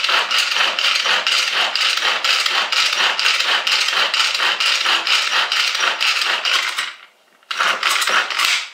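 Manual pull-cord food chopper worked with repeated pulls, its gears ratcheting and blades spinning as they mince pitted green and black olives: a loud, rapid clattering run that breaks off briefly about seven seconds in, then starts again.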